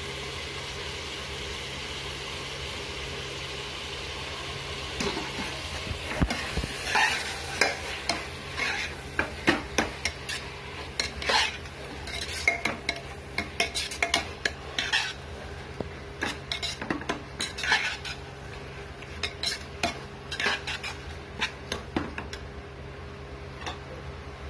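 Vegetables and paneer frying in a pressure cooker pot, with a steady sizzle. From about five seconds in, a metal spatula stirs them, scraping and clinking against the pot many times in quick irregular strokes, easing off near the end.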